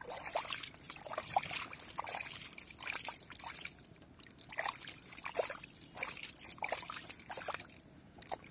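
Hands groping for fish in a hole of liquid mud and muddy water, making irregular wet squelches, plops and sloshes.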